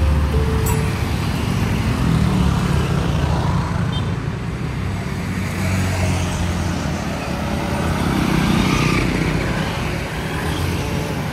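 Street traffic: motor scooters and cars passing close by, engines and tyres running continuously, swelling louder as vehicles go past about two seconds in and again near nine seconds.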